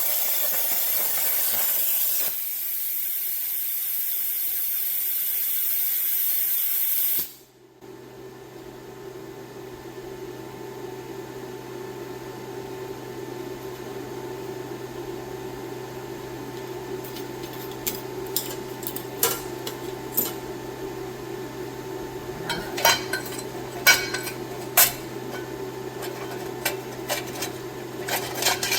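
Plasma torch cutting sheet steel with a loud, even hiss that cuts off abruptly about seven seconds in as the cut finishes. Afterward a steady low hum remains, with sharp metallic clinks and taps in the last ten seconds.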